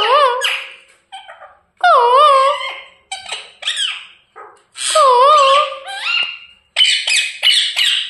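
Pet parrot giving high, squeaky calls that wobble up and down in pitch, four longer calls with short sharp notes in between.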